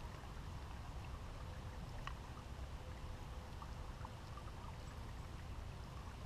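Small creek's water running steadily, with a few faint clicks.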